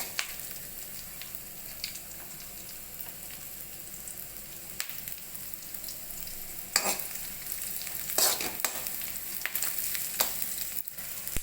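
Chopped onions sizzling in hot oil in a kadhai, frying towards light brown, with a steady hiss. They are stirred now and then, with a few sharp scraping strokes a little after halfway.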